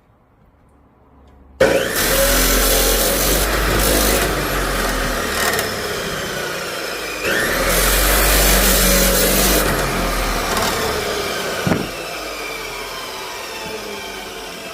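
A power tool cutting into the steel of an old chainsaw guide bar, nicking its corners. It starts suddenly about a second and a half in, runs in two loud stretches with a short dip between them, and is quieter from about twelve seconds on.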